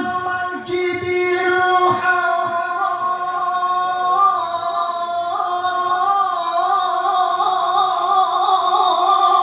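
A single voice reciting the Quran in the melodic tilawah style, holding long notes that waver and turn in ornaments, amplified through a PA sound system.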